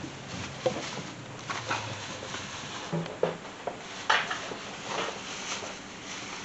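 Scattered light clicks and knocks of tools and engine parts being handled in an engine bay during a spark plug change, the strongest about four seconds in.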